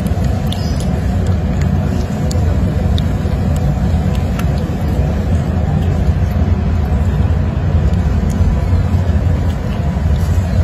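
Steady, loud low rumble of noise, with a few faint clicks.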